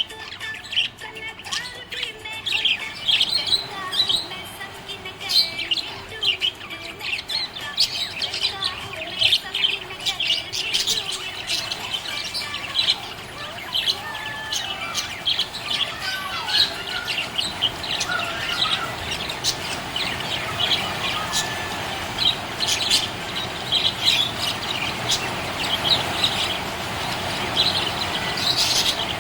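Budgerigar chirping and warbling: a rapid, continuous run of short high chirps, over a steady background rush that grows in the second half.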